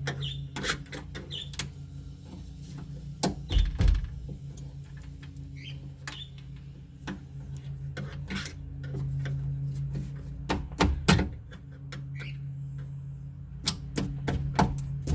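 Scattered clicks, taps and knocks of hand work on a car door's window regulator, with parts being pried and handled, including a louder knock about four seconds in and another about eleven seconds in, and a quicker run of clicks near the end. A steady low hum runs underneath.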